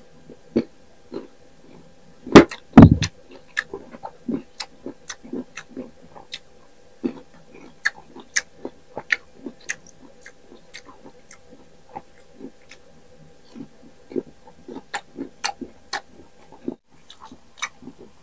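Close-up crunching and chewing of unripe green mango slices: a run of crisp crunches, about one or two a second, with two louder bites about two and a half seconds in.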